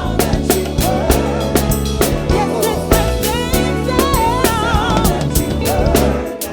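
Gospel praise-and-worship song played by a band, with a drum kit keeping a steady beat under a heavy bass line and a singer holding wavering notes with vibrato. The music drops briefly in level near the end.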